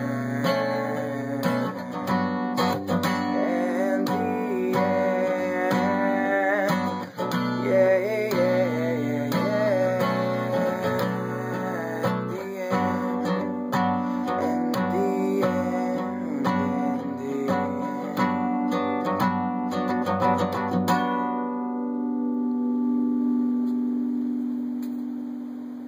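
Acoustic guitar strummed in a steady rhythm, with a man singing over the middle part. About five seconds from the end the strumming stops and a final chord rings out and slowly dies away, closing the song.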